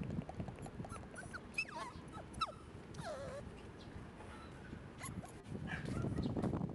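Shiba Inu puppy whimpering: a few short, high whines that slide up and down in pitch. Then a low rumbling noise near the end.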